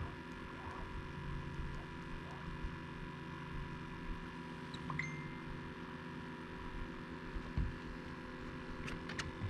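A steady electrical hum made of many fixed tones, with a brief high beep about halfway through, a low thump, and a few sharp clicks near the end.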